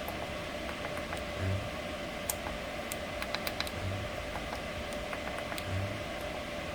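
Scattered light clicks of buttons being pressed on an ultrasonic welding generator's control panel while settings are entered, over a steady hum, with a few soft low thumps.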